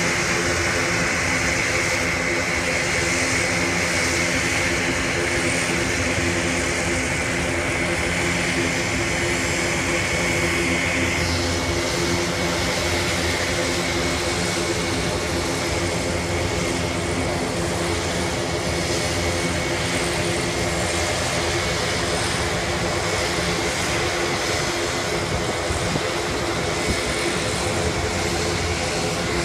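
Large aircraft engines running steadily, with a steady low drone and a high whine that stops about eleven seconds in.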